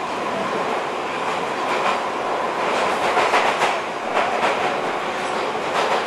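London Underground Piccadilly line 1973 Stock train running through a deep tube tunnel, heard from inside the carriage: a loud, steady rumble of wheels and tunnel noise with faint steady whine. Clickety-clack rattles over the rail joints bunch up about three seconds in, and again just before the end.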